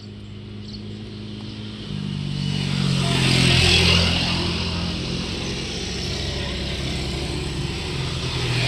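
Motor vehicles passing on a road close by, engines running steadily. One swells and fades about three to four seconds in, and a motor scooter approaches and grows louder near the end.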